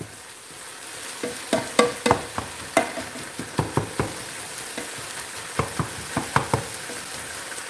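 Browning lean ground beef with onions and peppers sizzling in a large nonstick pan, stirred and broken up with a utensil that scrapes and taps against the pan many times in an irregular rhythm over a steady frying hiss.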